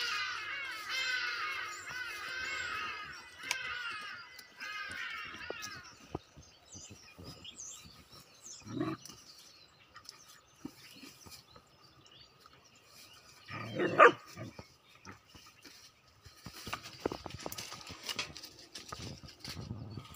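A puppy playing with a cat: high whining cries over the first several seconds, then a bark about nine seconds in and a louder bark about fourteen seconds in. Rustling in the grass near the end.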